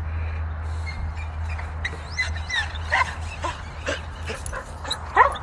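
Short, high animal calls, several quick yips and squeals from about two seconds in, the loudest near the end, over a steady low rumble.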